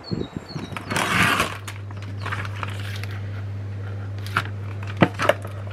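A brief rustle, then a steady low electrical hum from about a second and a half in. A few sharp clicks and crackles come near the end.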